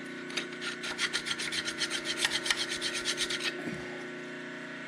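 Hand file rasping on the steel Model T driveshaft in quick short strokes, about six a second, stopping about three and a half seconds in, over a faint steady shop hum.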